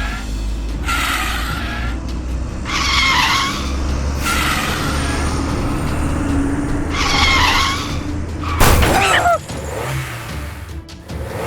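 Cartoon vehicle sound effects: a steady low engine rumble under repeated screeching skids, each about a second long, and a sudden bang with a falling tone near the end.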